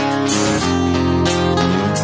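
Background music: a guitar-led song with strummed chords over a steady beat.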